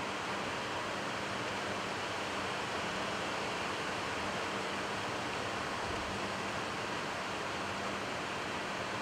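Steady hiss with a faint low hum on the McDonnell Douglas MD-11's flight deck while the freighter taxis with its engines at idle.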